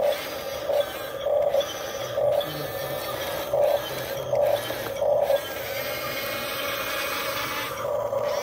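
Electric gear motors of a Huina 1:12-scale RC excavator whirring in short stop-start bursts as the boom and bucket are jogged, then a steadier gear whine from about five seconds in as the tracks drive it along.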